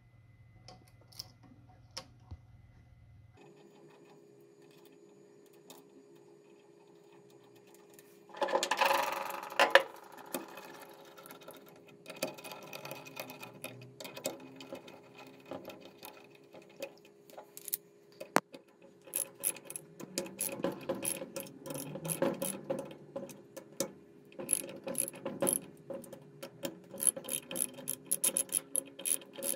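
Socket ratchet wrench clicking as it tightens the 12 mm rocker-arm bolts on a motorcycle cylinder head. After a quiet start there is a brief clatter of handling, then runs of rapid ratchet clicks that get denser toward the end.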